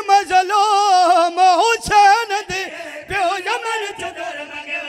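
A man singing a mournful majlis lament into a microphone, in long, wavering, ornamented notes.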